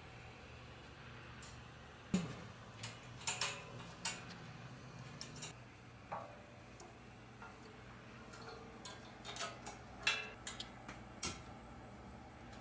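Scattered metal clicks and light knocks of a light bar and its mounting hardware being handled and fitted into a steel front bumper. They come in bunches about two to four seconds in and again around ten to eleven seconds in, over a faint steady hum.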